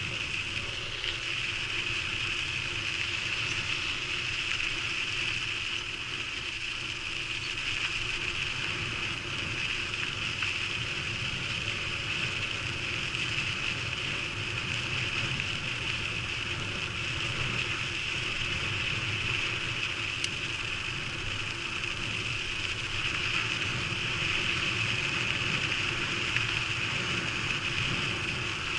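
Steady rushing travel noise from a camera moving along a gravel trail, with a constant high-pitched buzz over a low rumble.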